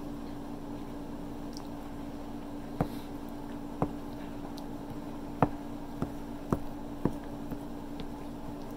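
Eating sounds: chewing with wet mouth smacks and sharp clicks, about seven of them starting some three seconds in, over a steady low hum.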